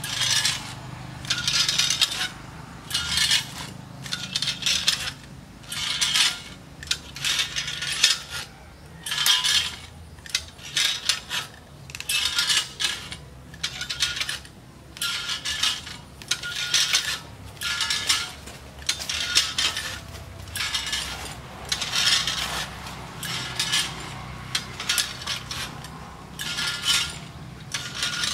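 Metal standing-type coconut-tree climber clinking and scraping against the palm trunk with each step, about one burst a second. Each time body weight presses a pedal, the pedal slides along its frame and pulls the cable tight around the trunk.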